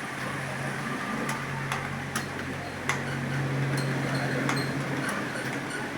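Computer keyboard keys clicking irregularly as a student types during a timed typing test. A low steady hum runs underneath and stops about five seconds in.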